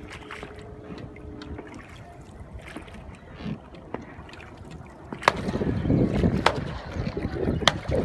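Wooden oars of a rowing boat knocking in their oarlocks, a sharp knock about every second and a quarter, with water moving at each stroke; the rowing gets louder from about five seconds in.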